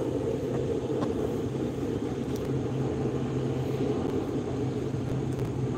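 A steady low mechanical drone, even in level, with a steady low hum under it and a few faint ticks.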